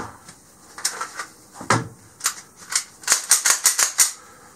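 Hard plastic and metal clicks and rattles from a pistol and a 3D-printed magazine well vise block being handled, with a quick run of sharp clicks about three seconds in.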